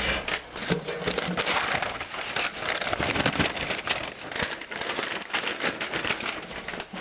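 Plastic bags and packing material rustling and crinkling, with small clicks and knocks from parts being handled, as an intake kit is unpacked.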